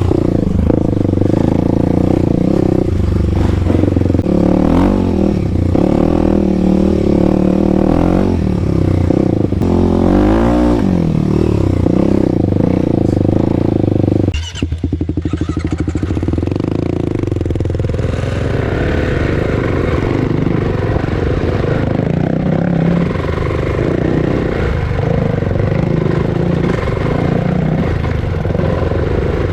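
Kawasaki KLX300 single-cylinder engine running through a Barker's aftermarket exhaust, its revs rising and falling. About halfway through, the sound breaks off abruptly, then carries on.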